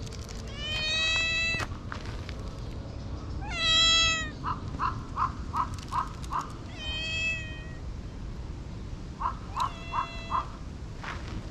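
A tabby-and-white cat meowing, about four drawn-out meows a few seconds apart. Between them come two runs of short, quick chirping notes, about three a second.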